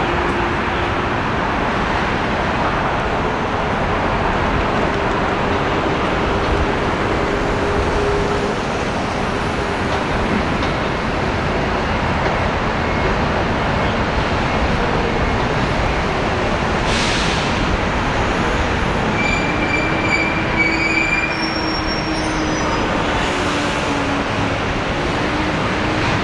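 Steady city traffic roar with a low rumble, and a faint engine hum that wavers in pitch. Near the end come two short hissing swells and a few brief high chirps.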